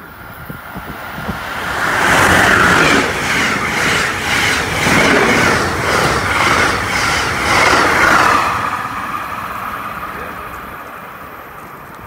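Amtrak passenger train of Amfleet coaches passing at speed: the rush of wheels on rail swells up, holds loud for about six seconds with a rhythmic clatter of wheels over the track, then fades as the train draws away.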